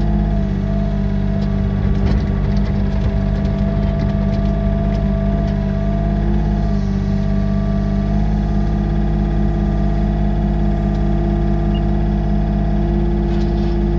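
Yanmar B37 excavator's diesel engine running steadily, heard from inside the cab, with a whine that shifts in pitch a few times as the arm and tiltrotator grading bucket are worked.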